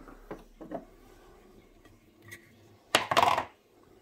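Kitchen handling sounds: a few light knocks, then a short, loud clatter of hard kitchen objects about three seconds in.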